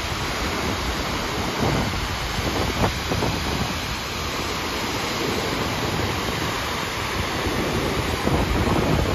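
Steady rushing of a large muddy waterfall, monsoon floodwater pouring over tiered sandstone ledges at Grand Falls, with wind buffeting the microphone in an uneven low rumble.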